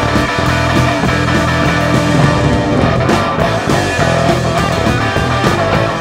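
Live band playing an instrumental passage with no vocals: electric guitar over bass and a drum kit.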